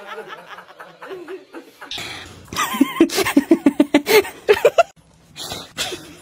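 Laughter: a loud run of quick pulsed laughs, about five a second, climbing in pitch at the end, after a stretch of softer voice sounds, then two short breathy bursts.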